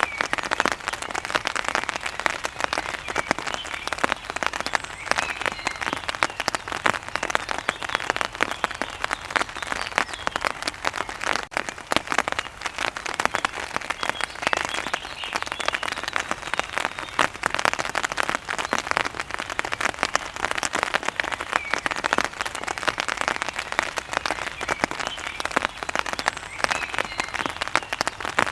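Steady rain: a dense, even spatter of many close drops striking a surface.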